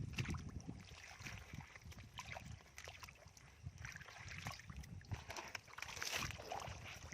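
Shallow water sloshing and splashing in small, irregular splashes.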